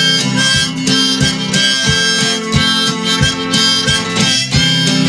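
Instrumental break in a folk song: a wind instrument plays a melody of long held notes over strummed acoustic guitar keeping a steady beat.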